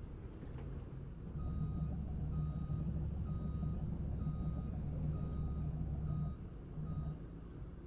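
Back-up alarm on a piece of heavy logging equipment beeping seven times, about once a second, while the machine's engine runs louder under load; the engine eases off near the end.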